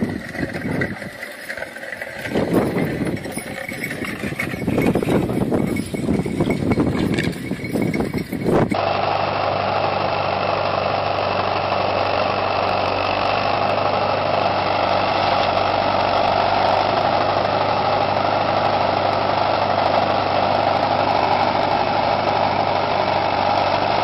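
Irregular, gusting wind and rustling noise for about the first nine seconds. Then a small tractor's engine starts up abruptly and runs steadily under load as the tractor pulls a disc plow through sod.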